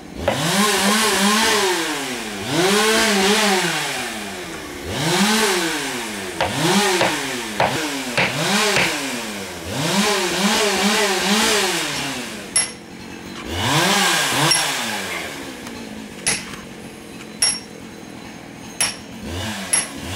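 A petrol engine revved up and dropping back again and again, about every two seconds. It stops near the end, where a few sharp metal taps ring out.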